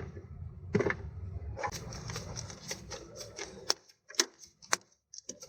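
Sharp clicks and light metallic knocks of hand tools at work, coming irregularly several times a second over a low hum. The hum cuts out a little past the middle, leaving only a few separate clicks.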